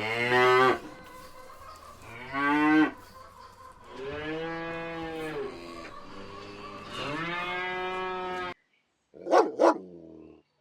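Cattle mooing, four calls, the first two short and the last two longer and drawn out. After an abrupt cut near the end come two short, sharp dog barks.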